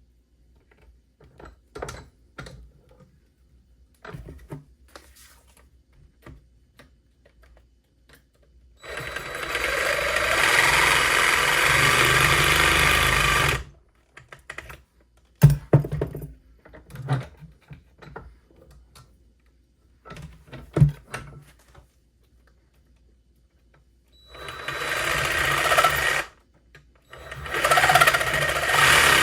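Power tool cutting a length of conduit into halves, running in three bursts: about five seconds from roughly 9 s in, then two shorter runs near the end. Between the runs come scattered knocks and clicks from handling the conduit and tool.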